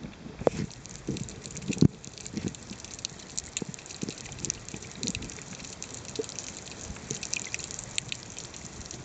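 Underwater sound through a submerged camera during snorkeling: irregular muffled thumps of water pushed by kicking swim fins, with scattered sharp clicks and crackles that come more often in the second half.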